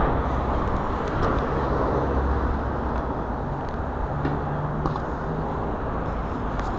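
Steady city street traffic noise, with a few faint clicks.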